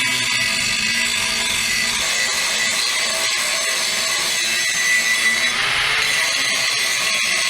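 Harbor Freight angle grinder with a fresh grinding disc running steadily against the steel edge of a broken plow moldboard piece, grinding a bevel on it to prepare for welding.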